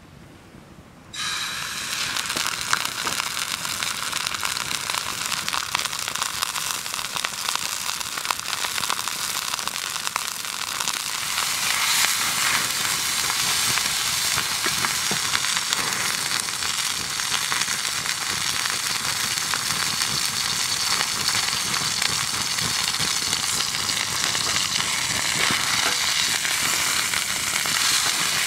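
A slab of raw beef hits a hot cast-iron skillet about a second in and sizzles steadily as it sears, with many small pops, getting a little louder partway through.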